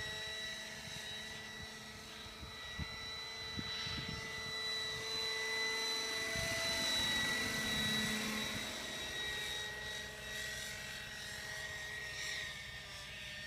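Radio-controlled model helicopter with a fenestron (shrouded fan) tail rotor in flight, giving a steady high whine with a lower hum under it. It grows louder about halfway through as it passes closer, then eases off.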